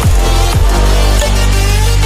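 Electronic dance music in the dubstep style, with a heavy sustained bass and sharp downward bass sweeps.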